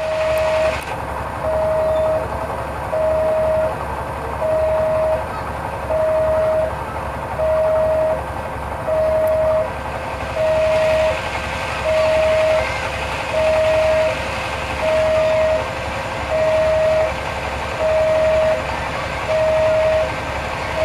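Railway level-crossing warning alarm sounding a steady repeated beep of one pitch, about one beep every second and a half, over a low background hum. A rushing noise grows louder about halfway through.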